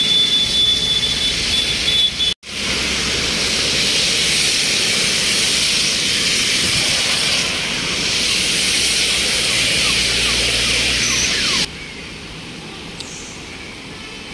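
Steady rushing hiss of floodwater and rain running over a road, with traffic mixed in. The sound drops out for an instant about two seconds in, and near the end it falls to a quieter hiss.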